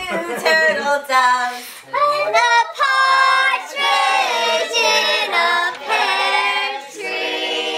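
Several people singing together, in held notes that slide in pitch, with a short break about two seconds in.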